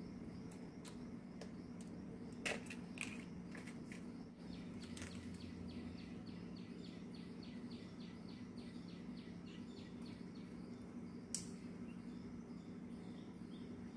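Faint clicks and snaps of fingers picking florets off a banana flower, over a steady low hum. A rapid, even run of faint high chirps comes in the middle.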